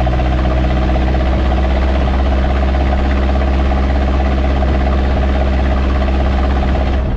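2.2 L Perkins four-cylinder diesel engine of a 1984 Mazda B2200 mini truck running at a steady engine speed, a loud, even diesel drone with a strong low hum.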